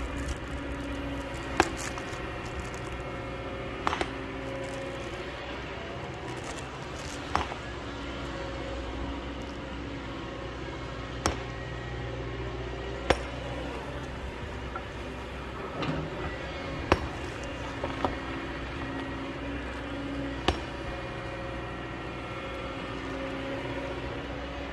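Kobelco excavator's engine running steadily under load, its pitch swelling and easing as the arm works. About eight sharp clinks and knocks of stone are spread through it.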